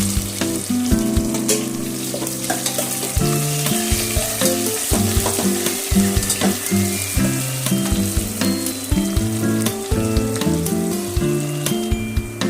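Food frying and sizzling, a steady hiss, with background music playing underneath.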